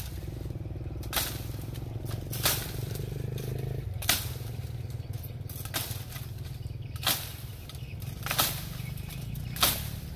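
Long-handled blade tool chopping into a bamboo thicket: six sharp chops, most about a second and a half apart, with a longer pause in the middle.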